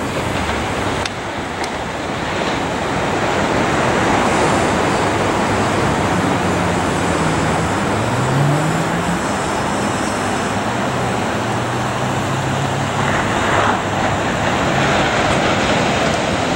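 A steady rush of road traffic and surf, with a passing vehicle's engine that rises and falls in pitch through the middle.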